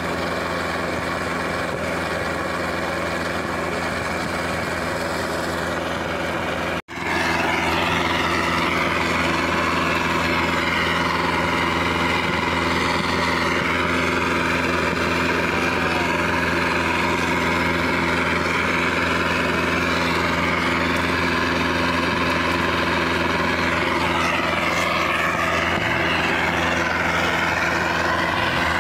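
A steady engine running with an even hum, under the hissing roar of the preheating burner that heats a thermit-weld mould on the rail gap. The sound cuts out for a moment about seven seconds in, then carries on unchanged.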